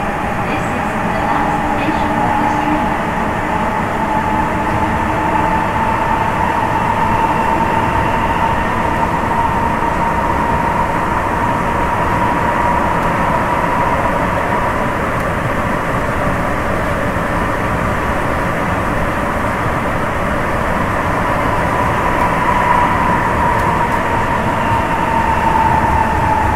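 Interior running sound of a Sapporo Municipal Subway 9000-series train on the rubber-tyred Tōhō Line, travelling through the tunnel between stations. A steady loud rumble carries a high whine that rises a little at first, holds, and eases slightly near the end.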